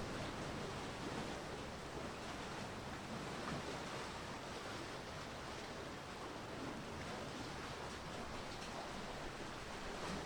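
Steady wash of waves and wind at the water's edge, an even hiss without distinct events, with a faint low hum underneath.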